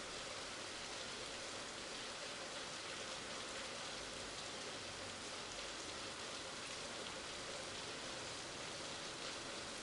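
Heavy rain falling steadily, an even hiss with no thunder or gusts standing out.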